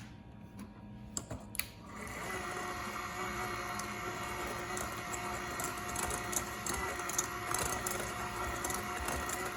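A few clicks, then a small electric motor starts about two seconds in and runs steadily with a whirring hum and light rattling.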